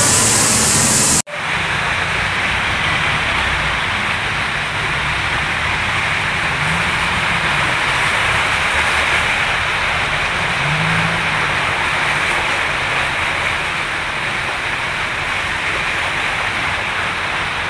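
A hard hiss of water jetting from a drainage pump hose, cut off abruptly about a second in, followed by cars driving through a flooded street, their tyres splashing and hissing through the water over a low engine rumble.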